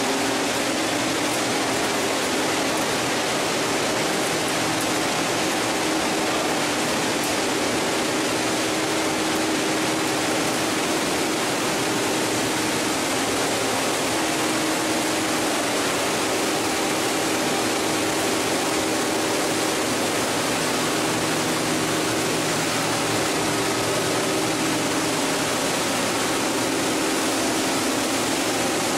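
PET bottle washing line running: a steady, even rush of machinery and churning water with a low motor hum underneath, unchanging throughout.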